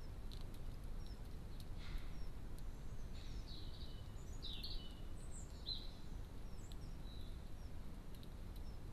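Small songbirds chirping and twittering, with short high notes scattered through and a busier run of twittering in the middle, over a steady low outdoor rumble.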